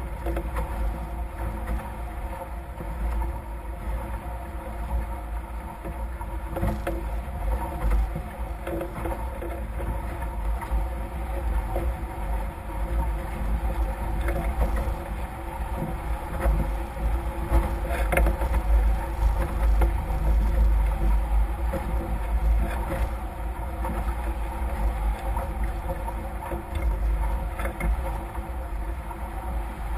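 Wind buffeting the microphone over the steady rush of water past the hulls of a Nacra F18 racing catamaran sailing at speed, with a steady hum underneath.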